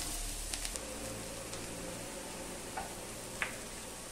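Butter and onions sizzling steadily in a hot iron kadai as fried sweet corn kernels are tipped in, with a few light clicks.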